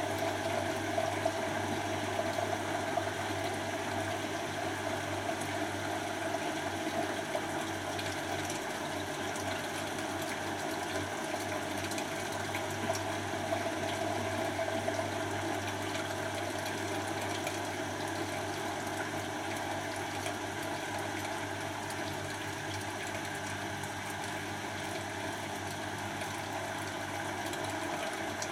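Beko WTB741R2A front-loading washing machine on its Daily Quick cycle, its drum turning a full load of clothes with water sloshing over a steady motor hum.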